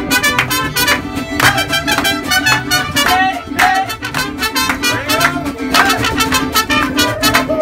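Mariachi band playing a dance tune live: violin melody over strummed guitars keeping a steady beat.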